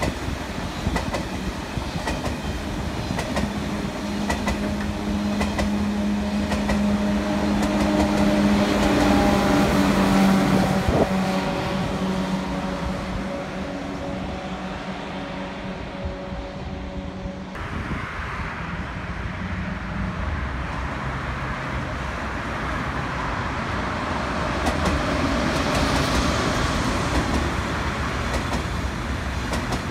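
Electric high-speed trains running past the track: a Eurostar set hums by with a few steady tones, growing louder and then fading. The sound cuts off suddenly about halfway through, and a double-deck TGV Euroduplex rolls past with a wheel rumble that swells near the end.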